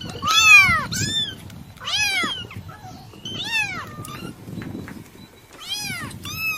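Kitten meowing repeatedly: about five short, high calls, each rising and falling in pitch, spaced unevenly.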